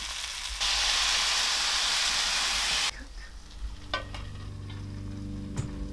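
Chicken and toasted orzo frying in a hot pan, the sizzle jumping much louder for about two seconds as broth is poured in, then stopping abruptly. Soft background music with steady tones comes in for the second half, with a couple of light clicks.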